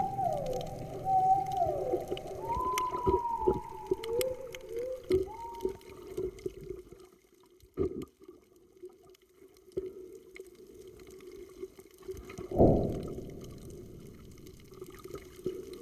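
Underwater soundscape of whale calls: a run of falling, moaning calls over a steady hum, a few short rising calls and scattered clicks. It then turns quieter with faint water sounds, and one loud falling call comes near the end.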